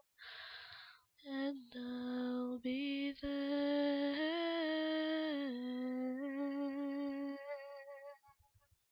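A woman humming the song's closing wordless notes, a few held pitches with small steps up and down, fading out about eight seconds in.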